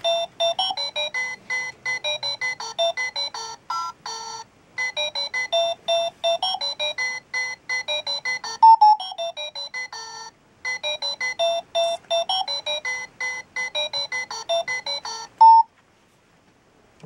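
Battery-powered alarm clock playing a fast electronic beeping tune, set off by putting batteries in it. The tune comes in phrases with short breaks and a falling glide about nine seconds in, and it stops about a second and a half before the end.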